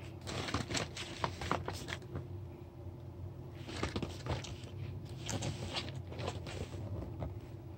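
Packaging being handled: two spells of quick crinkling and rustling, the first at the start and the second from about three and a half seconds in, over a steady low hum.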